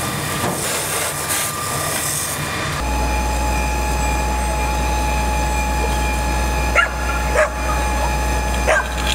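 Hiss of water spray and steam on a burning car. Then a steady low engine drone with a thin steady whine, and a few short, sharp bark-like calls near the end.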